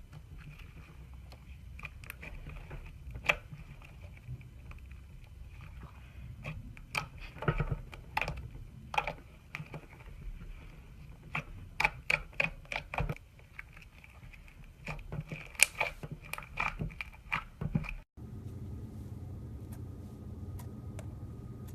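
Slime being squeezed and poked by hand, giving irregular sharp clicks and pops. About eighteen seconds in, the sound cuts to a steady low hum with only a few faint clicks.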